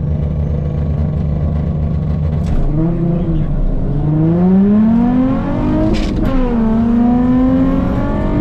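Nissan 350Z's 3.5-litre V6 through a sport exhaust, idling, then a short throttle blip, then a hard launch. The revs climb, drop at a gear change about six seconds in, and climb again in the next gear.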